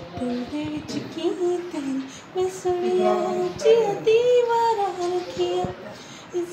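A woman singing a melody with held, gliding notes, over little or no backing music.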